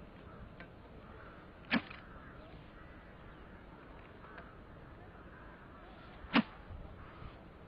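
Two sharp swishes, about four and a half seconds apart, of a carp angler's throwing stick whipped overhead to fire bait out into the lake.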